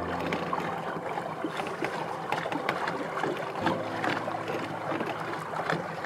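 Water lapping and splashing against the hull of a small boat, with many small irregular splashes over a steady wash.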